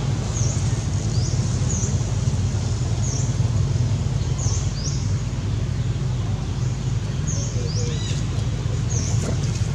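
A bird repeating a short, high chirp about once a second over a loud, steady low rumble.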